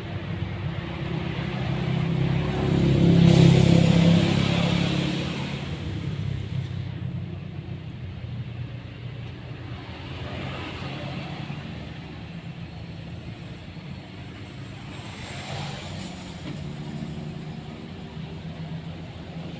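Road traffic passing: a vehicle's engine swells to a peak a few seconds in and fades away, and a second vehicle passes more faintly later on.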